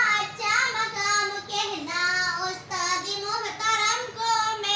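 A young girl singing an Urdu nazm solo in a high voice, with long held notes.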